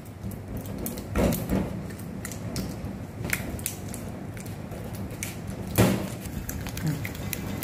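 A spatula scraping and tapping against a glass bowl as butter and margarine are creamed together by hand: irregular clicks and scrapes, with two louder knocks about a second in and near six seconds.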